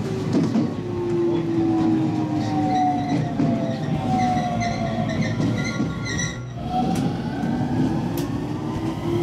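Electric train pulling away from a station: the traction motors whine in several tones that slide down in pitch, break off about six seconds in, then return and climb as the train gathers speed, over a steady rumble of wheels on the rails.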